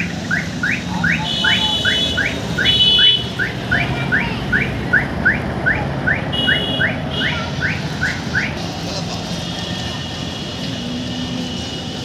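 2012 Mahindra Scorpio's mHawk diesel engine running as the SUV pulls away. Over it, a high rising chirp repeats about two or three times a second and stops about eight seconds in.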